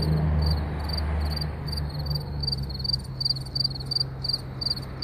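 A cricket chirping in short, even, high-pitched chirps, roughly three a second. Under it, a low steady hum fades away over the first few seconds.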